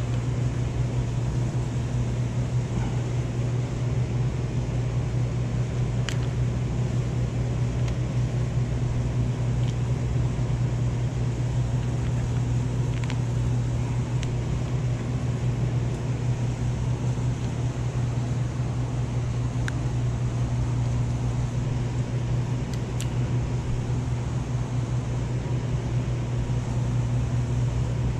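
A machine's steady low hum, with a few faint clicks.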